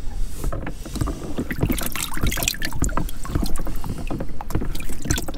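Scallop shells clicking and knocking against each other and the plastic bucket as they are handled in seawater. The knocks come in a dense, irregular run over a low steady rumble.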